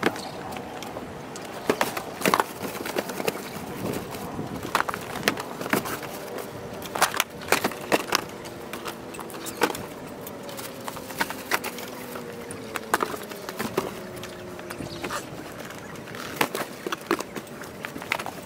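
Irregular knocks, thumps and scrapes of cardboard boxes and gear being handled and packed into a car's boot.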